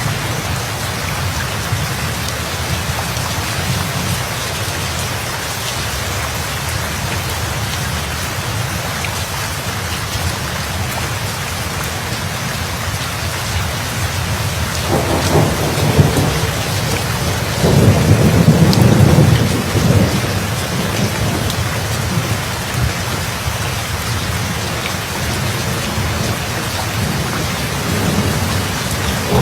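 Steady heavy rain, with thunder rolling in about halfway through, loudest a few seconds later, then rumbling away.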